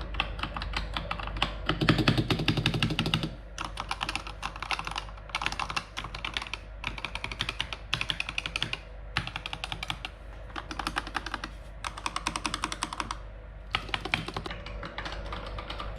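Typing on a Razer Huntsman Tournament Edition keyboard with optical switches: quick runs of keystrokes broken by short pauses, with a stretch of heavier, deeper strokes about two seconds in. The typing is not too loud and has no rattle.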